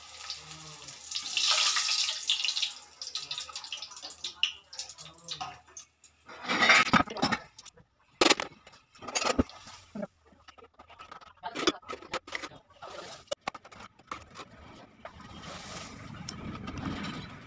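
Hot oil sizzling in a kadai as a papad fries in a wire frying basket, with repeated sharp clinks and scrapes of the metal basket against the pan. The sizzling rises early on and again near the end.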